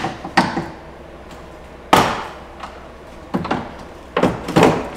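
Plastic trim clips and panel being pried loose by hand and tool: several sharp plastic clicks and knocks, the loudest about two seconds in and a quick pair near the end.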